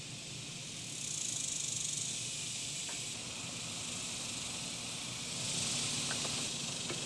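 A chorus of cicadas droning in the trees: a steady, high, hissing buzz that swells louder about a second in and again a little past the middle.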